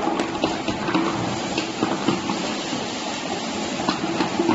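Automatic labelling machine running: a steady mechanical hum from its motors and conveyor, with irregular light clicks from the mechanism.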